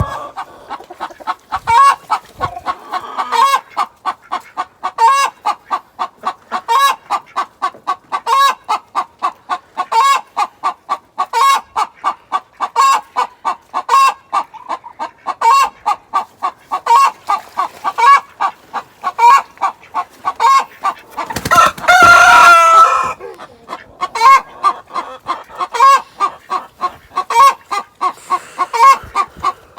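A hen cackling: fast runs of short clucks, each run rising to a louder cluck, over and over, with one long, loud drawn-out squawk about 22 seconds in. This is the sustained hen cackle known as the chicken song or egg song.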